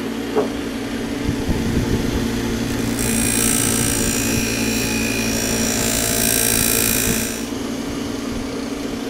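Motor-driven buffing wheel running with a steady hum. About three seconds in, a steel plane blade is pressed to the spinning compound-charged wheel to hone its edge, adding a loud high hiss for about four seconds. The blade is then lifted off and the motor keeps running.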